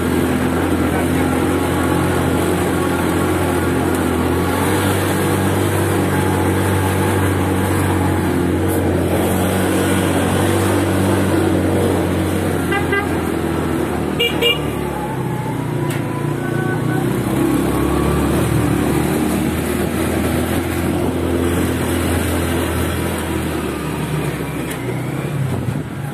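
Motorcycle engine running steadily under load on a steep climb, with brief horn toots about halfway through.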